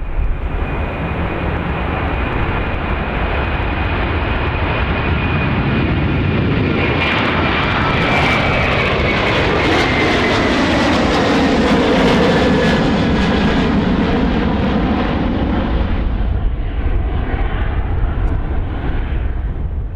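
Airbus A330 airliner's jet engines at takeoff power as it rolls down the runway and passes: a loud, steady engine noise with a high whine that slides lower as it goes by, loudest around the middle and easing off near the end.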